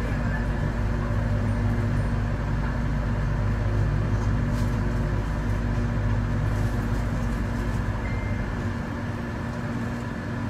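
Mitsubishi Crystal Mover light-rail car of the Sengkang LRT running, heard from on board: a steady hum with a few constant tones over a low rumble. Near the end the low rumble falls away as the train slows into a station stop.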